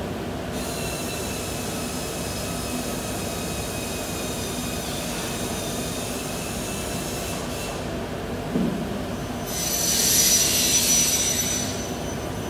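Workshop machinery running with a steady hum and a high whine. There is a thump about eight and a half seconds in, then a louder high-pitched hiss with a squeal for about two seconds near the end.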